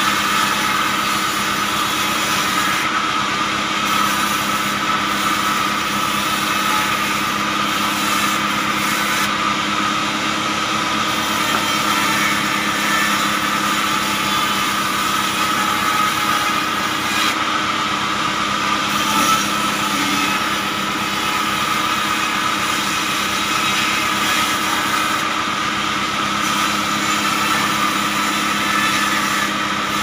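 Band saw mill running steadily while a log is fed through the blade and sawn into boards. It makes a continuous, even machine noise with a constant whine and does not pause.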